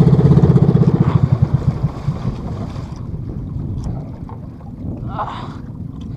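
Outrigger fishing boat's engine running with a fast, even pulsing beat, dying away within the first two seconds; after that, wind and water washing along the hull.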